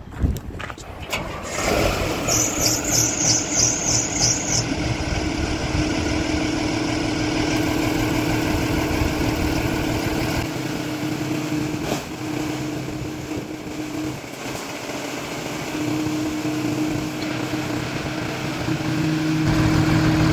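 Large Taylor forklift's engine cranking with a rapid pulsing for about two seconds, catching and running. A steady hum comes and goes several times while the hydraulics raise the mast.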